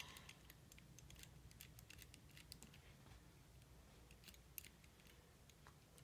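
Faint, irregular clicking of the number wheels on a Delswin four-digit combination disc padlock as they are turned by hand to the opening combination.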